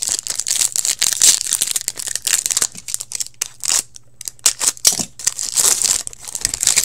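Crinkly plastic wrapper of a hockey card pack being torn and crumpled by hand: a dense run of crackles with a brief lull a little past halfway.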